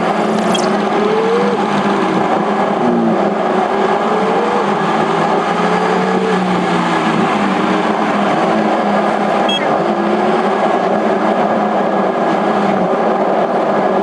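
A car's engine and road noise heard from inside the cabin while driving, loud and steady. An engine tone rises and falls back several times.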